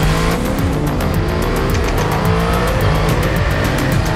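Motorcycle engine revving, its pitch rising and falling, mixed over electronic music with a steady beat.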